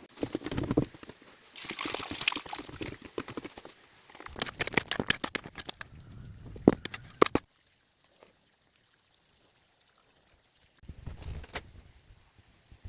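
Water pouring and splashing in a few separate spells, with sharp clicks and knocks among them. Almost nothing is heard for about three seconds in the middle.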